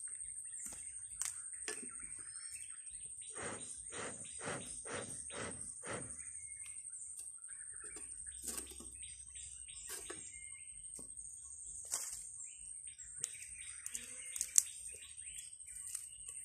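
Outdoor ambience: a steady high-pitched drone with bird chirps. A few seconds in comes a quick run of about six short scuffing sounds, about two a second, and scattered clicks follow later.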